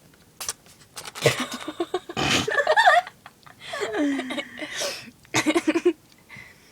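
People laughing and giggling in several bursts, with a quick run of short laughs near the end.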